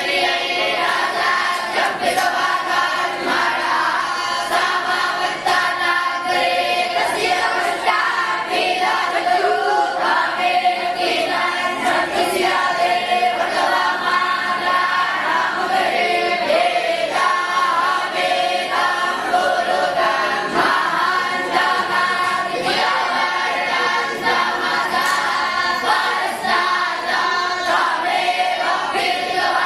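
A group of voices singing together in unison, choir-like and unbroken, at a steady loudness.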